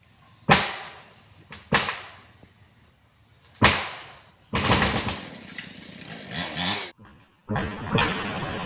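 Three loud, sharp cracks, each echoing away over about a second. Then a chainsaw runs unevenly, cuts out briefly, and runs steadily again.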